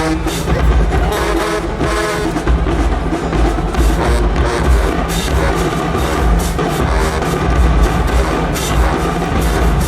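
Marching band playing loudly, with heavy drums and a deep bass line.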